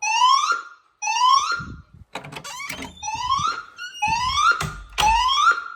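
Fire alarm speaker sounding a rising sweep tone between voice messages: about one upward glide a second, each climbing and then briefly holding at the top. A couple of short knocks or thumps come through near the end.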